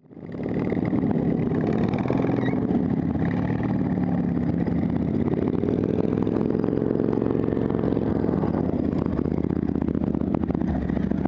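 Engines of racing ride-on lawn mowers running. One revs up about halfway through, holds, then eases off.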